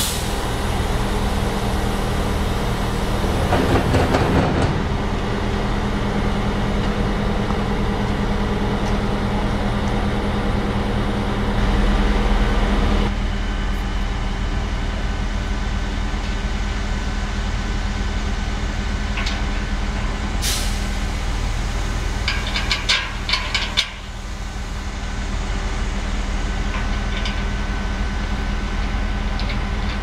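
Crane engine running steadily, with a short sharp hiss about twenty seconds in and a flurry of light metallic clinks a couple of seconds after.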